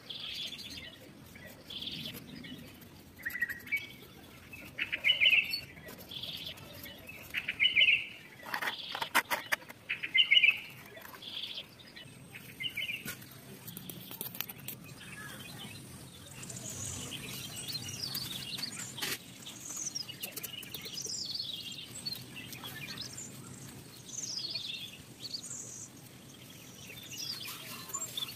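Birds chirping in short repeated calls, higher-pitched and falling later on, with a quick run of sharp clicks or taps about nine seconds in.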